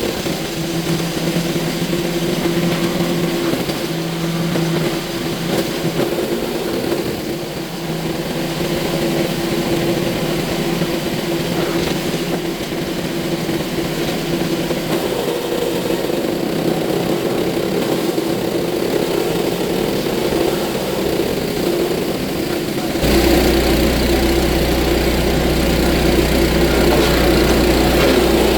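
Small gasoline engine of a belt-driven wood chipper running steadily. About 23 s in, a deep low rumble joins and it gets louder.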